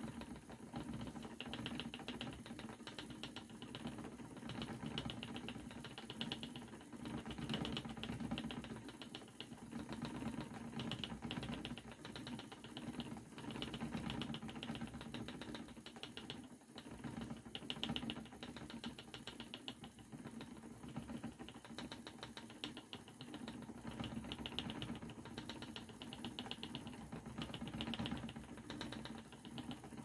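Spinning wheel running with a steady, rapid mechanical clatter that swells and eases every second or two, as a single of thick-and-thin art yarn is spun onto it.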